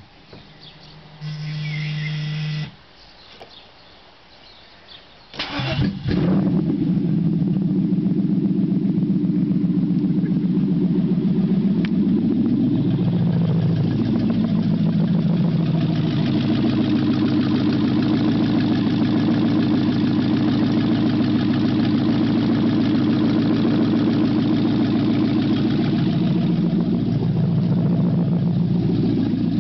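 Freshly rebuilt Mercedes-Benz W124 500E's M119 V8 engine, run with no exhaust fitted, on its first start. A short steady hum comes first, then the starter cranks briefly about five seconds in and the engine catches. It then idles loudly and steadily, its pitch sagging and recovering briefly about halfway through and again near the end.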